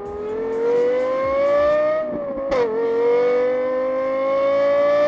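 A car engine accelerating hard, its note climbing steadily, then dropping briefly at a gear change about two and a half seconds in before climbing again.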